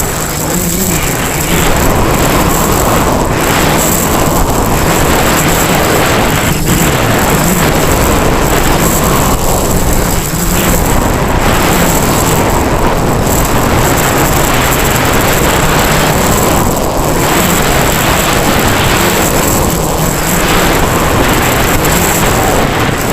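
Quadcopter's electric motors and propellers whirring over heavy wind rush on an onboard action-camera microphone, with a constant high whine above the noise.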